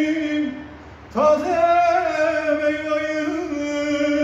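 A man singing long, held notes. One note breaks off about half a second in; after a short pause a new note slides up about a second in and is held steadily to the end.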